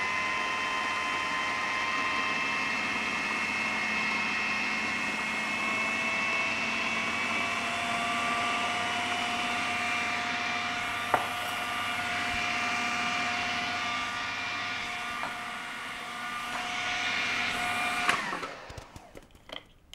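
Electric food processor motor running steadily with a whine as it purées cooked spinach and cream, then switching off about 18 seconds in and winding down.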